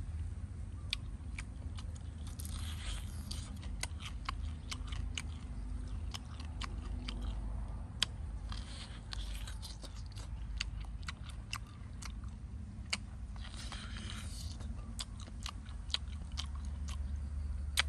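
A person biting and chewing meat from a roast pig leg close to the microphone: many sharp clicks of teeth and mouth throughout, with a few longer, noisier bites spaced a few seconds apart.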